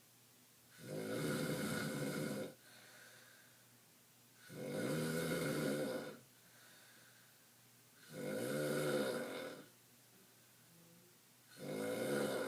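A sleeping person snoring in a steady rhythm: long snores about three and a half seconds apart, each lasting about a second and a half, with a fourth starting near the end.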